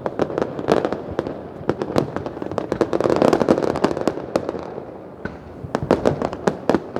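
Many fireworks going off at once: rapid, irregular bangs and crackles, with a louder stretch of overlapping blasts about three seconds in.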